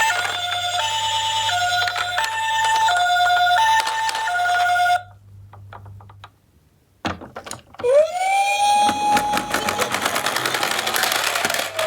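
Toy ambulance minicars' electronic sirens. One plays a two-tone hi-lo siren, stepping between a high and a low note about every 0.7 s, and stops after about five seconds. After a pause with a few clicks, another gives a siren tone that rises, holds steady and slowly falls near the end, over rapid clicking.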